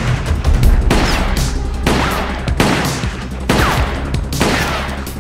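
A string of gunshot sound effects, about eight sharp shots spaced a few tenths of a second to a second apart, some trailed by a short whistling ricochet.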